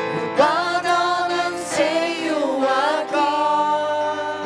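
Gospel worship song: a voice sings a sliding, bending melodic line over steady held chords from the band.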